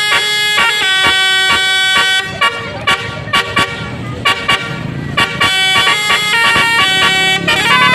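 Basuri-type telolet multi-tone bus air horn playing a stepped melody of held notes, with a run of short sharp toots in the middle.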